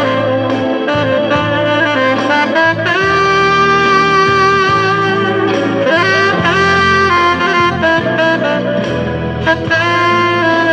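Selmer saxophone with a Meyer 7 mouthpiece and Fiberreed hemp reed playing a romantic ballad melody, with long held notes starting about three seconds in and again around six and a half seconds, over a steady lower accompaniment.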